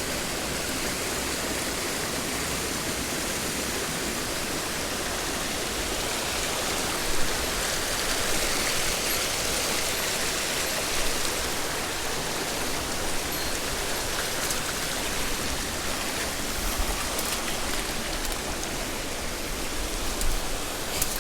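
Mountain stream flowing over rocks, a steady wash of water noise, with one brief knock about seven seconds in.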